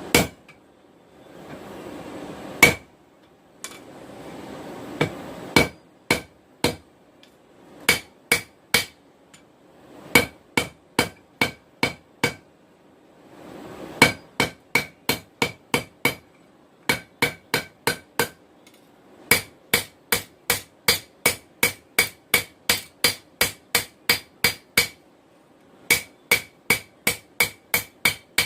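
Hammer blows on hot steel over an anvil, forging a knife blank; each strike rings. A few separate blows come first, then steady runs of about two to three strikes a second with short pauses between them, and a rushing noise is heard in some of the early gaps.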